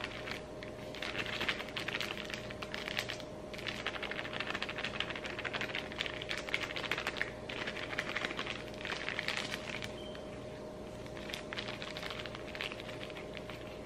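Soft plastic flour bag crinkling in the hand as flour is shaken out of it, a dense run of small crackles in spells with short pauses. A faint steady hum runs underneath.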